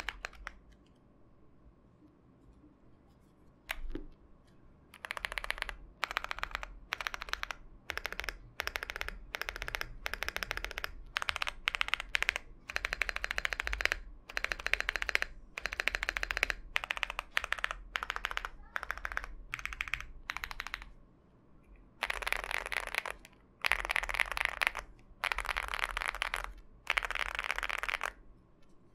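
Lucky 65 mechanical keyboard with Kanketsu Brevity tactile switches on a PC plate being typed on in bursts of rapid keystrokes, each burst a second or two long with short pauses between. The first few seconds are nearly quiet apart from a single click.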